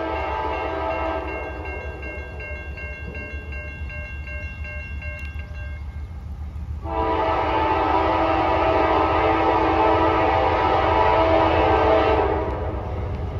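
Air horn of an approaching CSX freight locomotive, sounding for a grade crossing. One blast trails off about a second in; just past the middle a long, louder blast starts suddenly and cuts off near the end.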